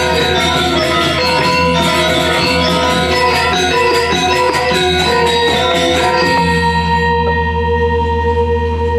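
Balinese gong kebyar gamelan playing a fast, dense passage of bronze metallophone and gong-kettle strokes. About six seconds in, the strokes stop together on a final accent and the bronze keys and gongs ring on with a low gong hum underneath.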